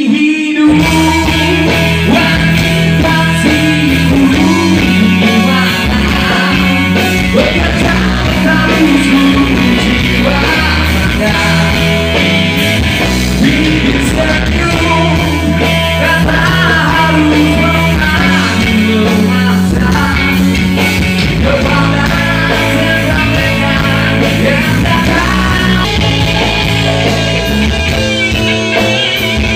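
A rock band playing live through the PA: electric guitars, bass guitar and drums, with a lead voice singing over them.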